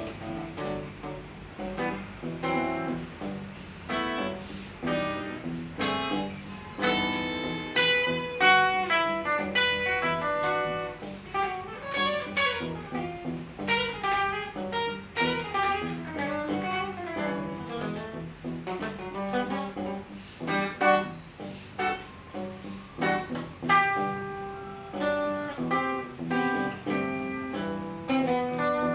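Electric guitar played with pick attacks: a steady stream of melodic single-note lines and chords.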